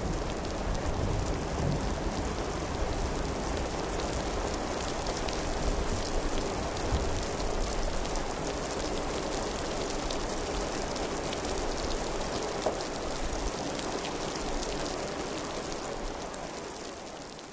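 Several layers of recorded rain playing together: steady rain falling on surfaces with many distinct drops, one layer of heavy, plopping drops. A low rumble dies away in the first couple of seconds, and the whole rain bed fades down near the end.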